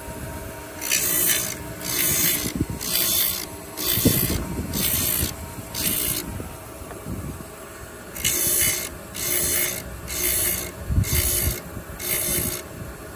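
Blade grinding machine sharpening a flat blade: rasping grinding strokes about one a second, six in a row, then a pause of about two seconds, then five more, over a steady motor hum.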